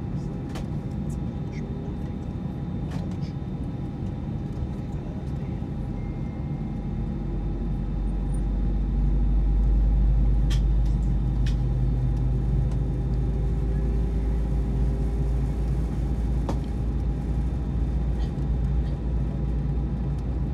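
Cabin noise inside an Airbus A320 during pushback: a steady hum with fixed tones, and a low rumble that swells about seven seconds in and then holds.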